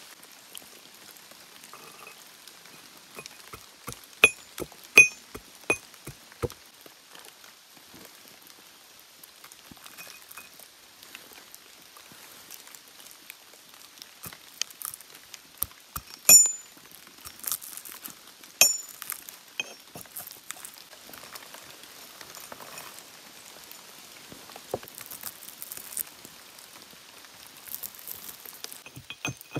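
Walnut kernels being crushed in a brass mortar with a pestle: irregular knocks that ring metallically off the mortar, with softer crunching and grinding between the blows.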